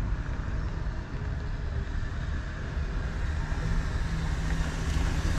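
Steady low rumble of outdoor city noise, with a faint steady hum joining about three and a half seconds in.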